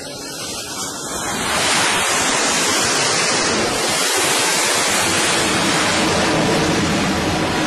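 F/A-18 Hornet jet engines at full power during a catapult launch from an aircraft carrier: a steady, loud rushing roar that swells up about a second in.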